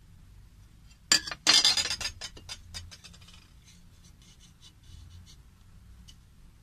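Handling noise of hand-held metal test pieces: a sharp metallic clink about a second in, then a second or so of loud scraping and rattling that trails off into a few light taps.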